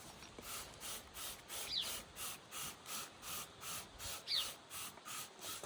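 A cloth wiping back and forth over a car headlight lens, quick even strokes about two and a half a second, cleaning it after a final spray. A bird chirps briefly twice in the background.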